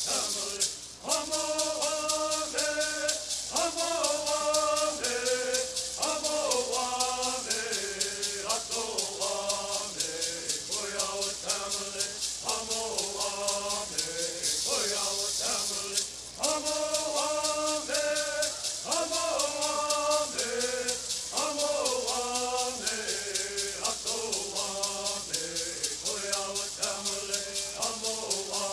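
Bird singing: voices singing a bird song together over gourd rattles shaken in a fast, even rhythm. The song breaks off briefly about a second in and again about halfway through, then picks up again.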